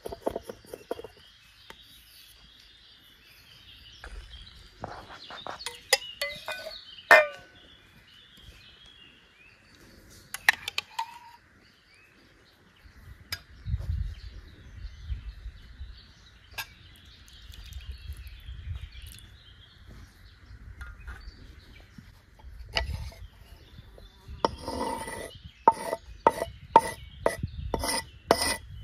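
A cleaver knocking on a wooden chopping board, then a metal spoon stirring sauce in a ceramic bowl with light clinks, with insects chirring steadily behind. Near the end the cleaver strikes the board in a quick regular run, about two strokes a second.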